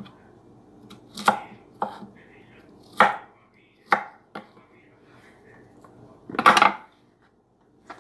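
Kitchen knife cutting summer squash on a wooden cutting board: a handful of separate chops at irregular spacing, with a longer, louder one near the end.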